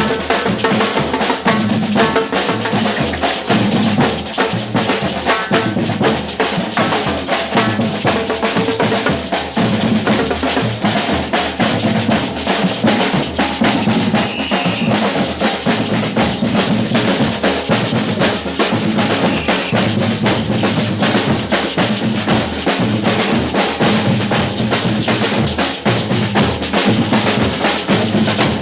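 Batucada samba percussion ensemble playing a loud, fast, unbroken rhythm: deep bass drums pulsing under dense snare-drum strokes.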